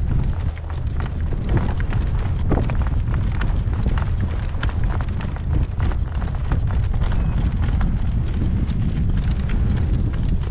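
Gale-force wind buffeting the microphone: a loud, steady low rumble with scattered sharp clicks.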